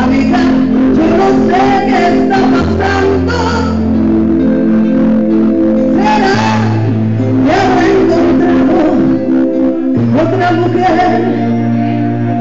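A woman singing a Spanish-language love-song duet into a microphone over amplified instrumental accompaniment with steady held bass notes and chords.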